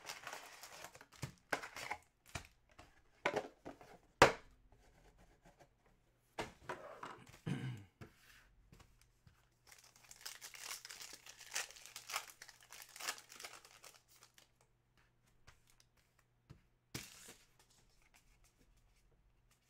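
Panini Contenders football card packs being torn open by hand: foil wrappers crinkling and ripping in irregular bursts, with a sharp click about four seconds in.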